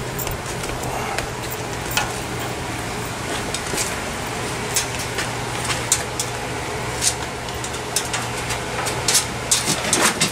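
Scattered light clicks, knocks and rustles of stored items being handled and shifted while searching a cluttered porch, getting busier and louder near the end, over a steady low hum.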